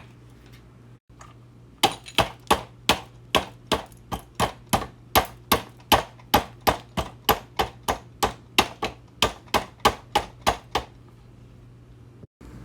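Hammer blows on metal, about three a second, a steady run of some two dozen strikes that stops near the end.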